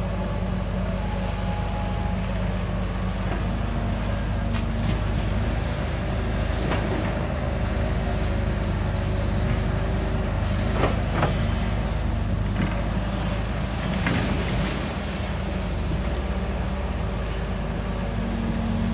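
Sumitomo S265 long-reach hydraulic excavator's diesel engine running steadily under load as the arm digs and swings, with a few short knocks in the middle of the stretch.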